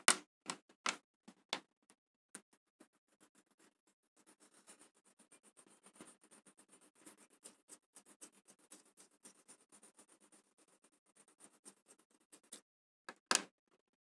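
A few sharp taps of a drawing tool on paper. Then about eight seconds of quick, scratchy strokes across the paper, and one louder tap near the end.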